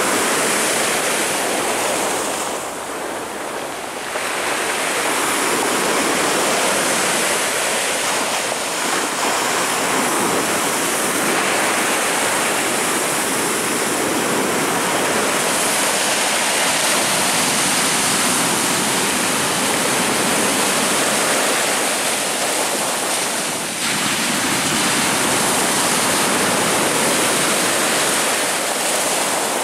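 Rough Black Sea surf: heavy waves breaking and washing on the shore in a continuous loud rush, easing briefly twice.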